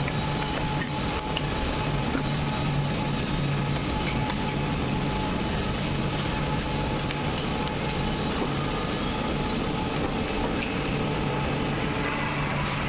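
WM-415GH high-speed four-sided wood planer running: steady, dense machine noise with a low hum underneath.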